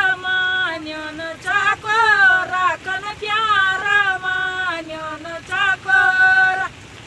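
Two women singing an old Garhwali folk song together without accompaniment, in long held notes that waver and bend, phrase after phrase with short breaks between.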